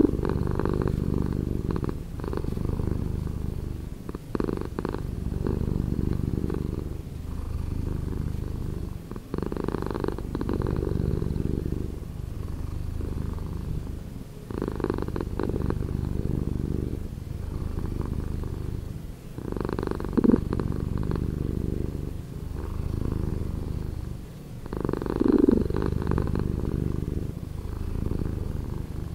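Domestic cat purring, the recording slowed down: a continuous low purr that swells and eases in a slow, regular rhythm of about one cycle every five seconds as the cat breathes in and out.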